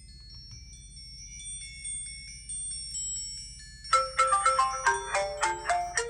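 Faint, high chiming notes, then about four seconds in a loud phone ringtone starts: a quick melody of marimba-like notes, ringing for an incoming call.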